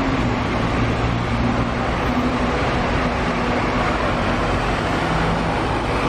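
Double-decker bus engine running steadily: a low hum under a wash of street noise.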